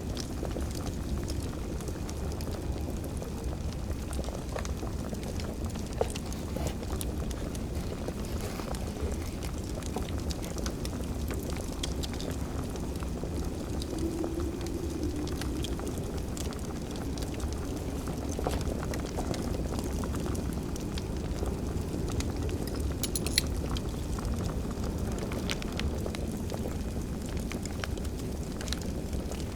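Fireplace fire crackling: a steady low rumble of flames with scattered small crackles and two sharper pops, about six and twenty-three seconds in.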